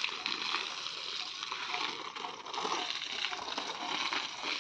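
Water from a garden hose spraying and splashing onto packed earth and brick paving, a steady splashing hiss.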